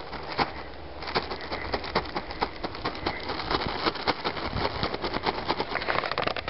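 Footsteps crunching in snow: a person walking steadily, each step a quick run of crisp crackles.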